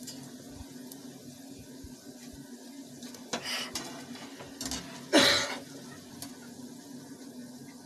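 Metal slotted skimmer scraping and clinking against a frying pan and a steel plate as fried bread cubes are scooped out of hot oil, over a faint sizzle of the oil and a steady low hum. The two loudest scrapes come about three and a half and five seconds in, the second the louder.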